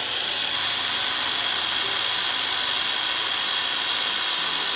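Electric pole chainsaw spinning up to full speed and running with a steady high-pitched whine.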